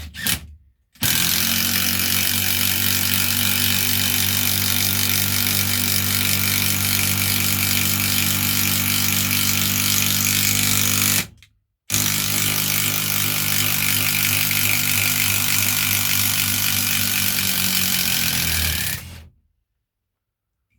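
Cordless brushless impact driver hammering a 120 mm coach screw into pre-drilled oak. It runs in two long, steady stretches, with a brief stop about 11 seconds in, and it cuts off near the end.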